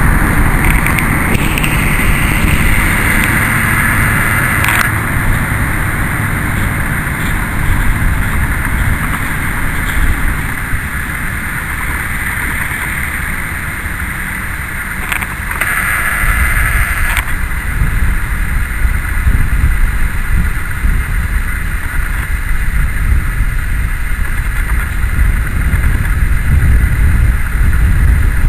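An SM30 shunting diesel locomotive running as it moves slowly along the siding with tank wagons, its engine heard under heavy wind rumble on the microphone. A higher-pitched noise rises over it twice: for the first five seconds, and for about two seconds just past the middle.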